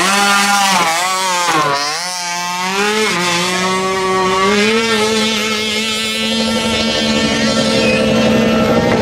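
50cc mini ATV engine running at high revs. Its pitch dips and climbs back twice in the first three seconds, then holds steady.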